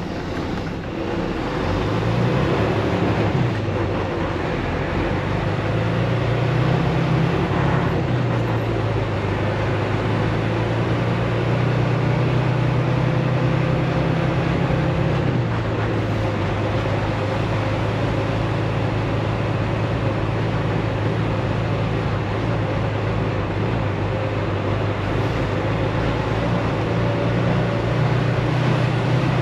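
Semi-truck's diesel engine heard from inside the cab while driving, with steady road noise; the engine's pitch shifts in the first few seconds and again about halfway, as it works through the gears.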